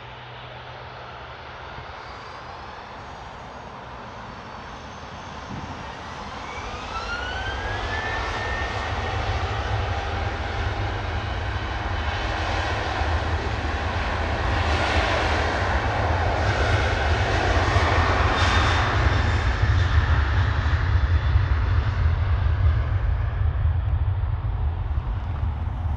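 Jet airliner's engines, with a high whine rising in pitch a few seconds in, then a loud, deep engine noise that builds and stays strong through the second half.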